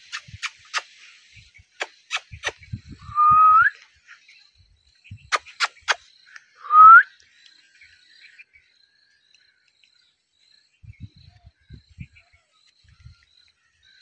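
Indian ringneck parakeet giving two short, clear whistles that rise in pitch, about three and a half seconds apart, among a scatter of sharp clicks.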